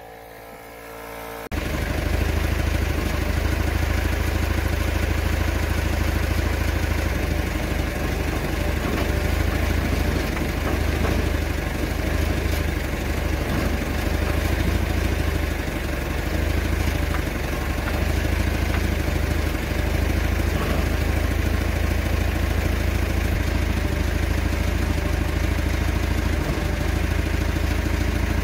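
Diesel engine of a JCB lifting machine idling steadily. It cuts in abruptly about a second and a half in.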